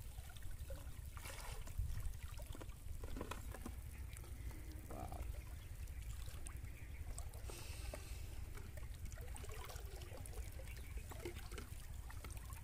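Pond water splashing, trickling and dripping as a plastic-bottle fish trap with catfish hanging from it is lifted out of the water, over a steady low rumble.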